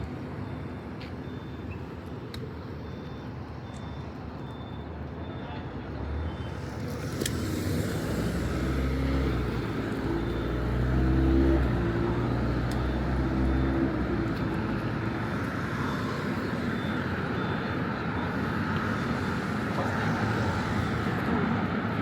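City street traffic at night. A motor vehicle drives past close by: its engine builds from about six seconds in, is loudest around the middle and fades away, leaving a steady wash of road noise.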